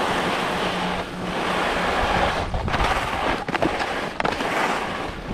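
Wind rushing over a GoPro action camera's microphone while skiing downhill, mixed with skis hissing over snow, and a few sharp knocks about halfway through.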